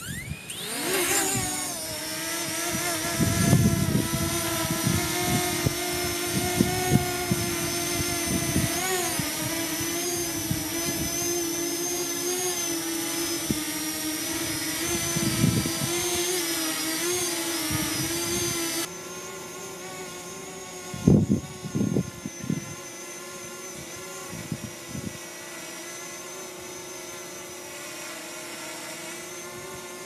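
Parrot Anafi quadcopter's propellers spinning up at takeoff with a quickly rising whine, then hovering about 2 m off with a steady high whine. About two-thirds of the way through it drops suddenly to a quieter steady whine as the drone hovers farther off, at about 5 m. Gusts of wind rumble on the microphone now and then.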